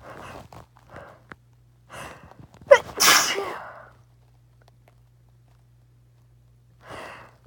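A person sneezing once: a few short catching breaths, then one loud sneeze about three seconds in, sharp at the start and trailing off over about a second. Another breath is drawn near the end, building to the next sneeze.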